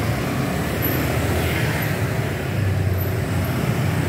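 Engines of a steady stream of motorcycles and motor scooters passing close by, a continuous traffic noise with no single vehicle standing out.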